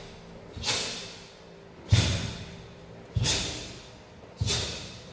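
Four sharp snaps about a second and a quarter apart, each fading in the room's echo: a karateka's blocks and punches in a kata, the gi cracking and breath forced out with each technique.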